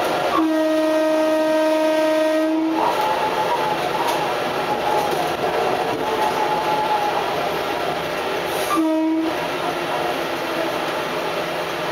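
Adelaide Metro 3100 series diesel railcar sounding its horn: one long blast of about two seconds, then a short blast about nine seconds in. The railcar's running noise continues underneath.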